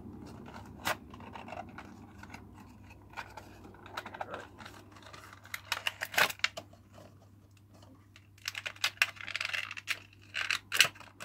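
Hands opening a toy's packaging: scattered clicks, scratches and crinkly rustling, sparse at first and busiest in the last few seconds, with the loudest snap about six seconds in.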